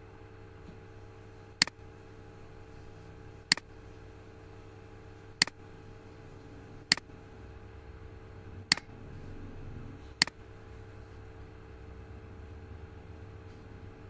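Six sharp computer mouse button clicks, one every one and a half to two seconds, over a steady low electrical hum.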